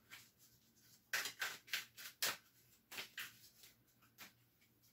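A deck of oracle cards being shuffled by hand: a run of short, soft papery swishes, several a second, starting about a second in and thinning out near the end.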